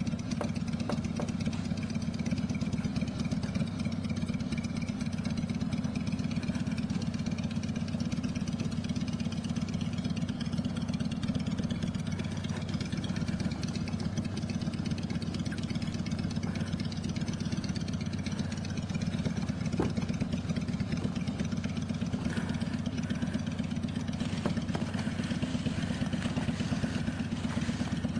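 Steady low rumble of an idling engine, even throughout with no revving.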